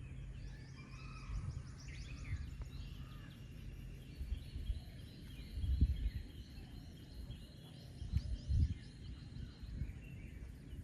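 Several birds chirping and trilling in woodland, with a few low thumps on the microphone about six and eight and a half seconds in.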